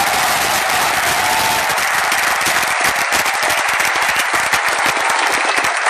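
Large football stadium crowd applauding: a dense, continuous wash of clapping and crowd voices from the stands.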